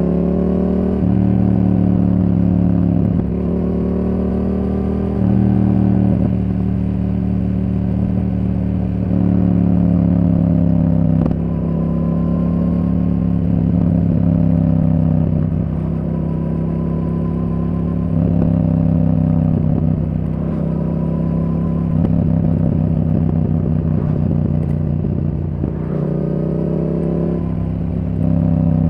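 Yamaha R7's 689 cc parallel-twin engine through a Yoshimura R77 exhaust, running under way. Its note repeatedly rises and then steps to a new pitch as the bike shifts between gears.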